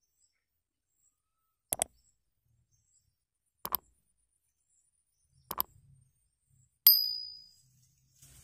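Like-and-subscribe button sound effect: three mouse clicks about two seconds apart, then a bright notification bell ding that rings out for most of a second.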